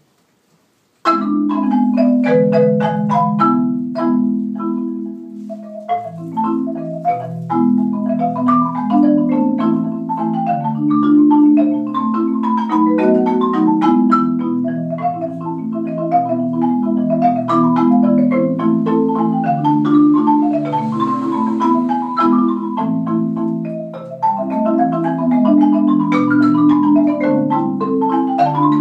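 Yamaha marimba played as a duet by two players with mallets, starting suddenly about a second in: sustained low notes under a quicker, busier line of higher notes.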